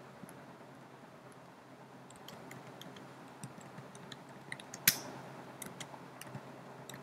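Computer keyboard keys clicking as someone types: faint, irregular keystrokes start about two seconds in, with one louder keystroke about five seconds in.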